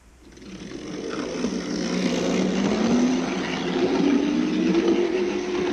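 Older Hornby OO-gauge Class 155 Sprinter power car running on the track: its electric motor whines and its wheels rumble on the rails. The sound swells over the first second or two, and the motor's pitch rises as it picks up speed, then holds steady. The motor has just been tightened and re-lubricated.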